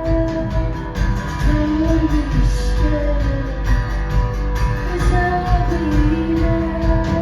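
Live band music: a woman singing long held notes over strummed guitar with a steady beat.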